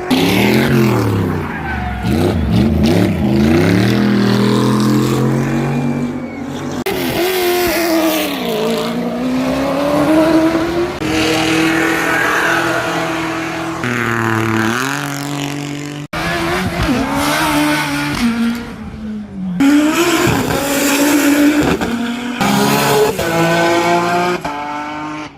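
Race car engines at high revs, the pitch climbing under acceleration and dropping at each gear change as cars run up the hillclimb course and pass. The sound breaks off sharply and restarts about sixteen seconds in.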